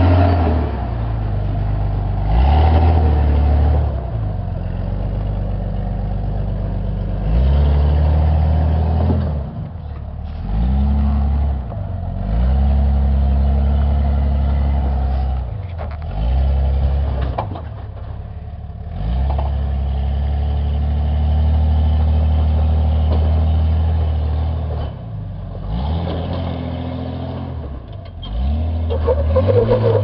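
Jeep Cherokee XJ engine revving in repeated surges, pitch rising and falling, as the vehicle works its way up a steep rock climb under load. One long steady pull comes in the second half, and a louder, higher burst comes near the end.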